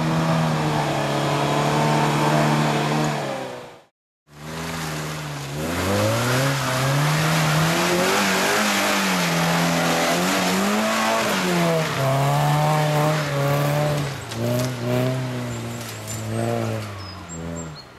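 Suzuki off-road 4x4's engine revving up and down under load on a dirt trail. The sound cuts out briefly about four seconds in, then the revs climb and fall again.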